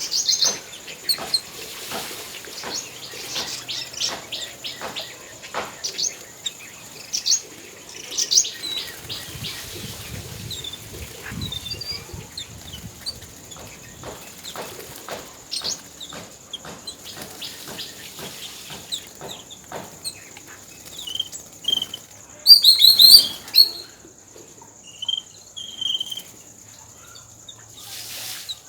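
A flock of yellow-billed babblers calling, with a steady stream of short harsh chirps and chatter and a loud burst of squeaky high calls a little over 22 seconds in. A steady high insect-like drone runs underneath.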